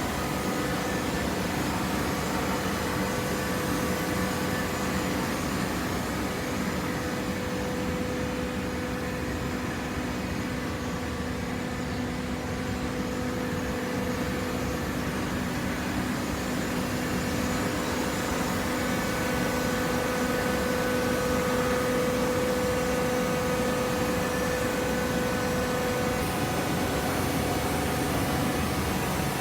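Machinery running steadily: a continuous hum with several steady tones, growing a little louder about two-thirds of the way in.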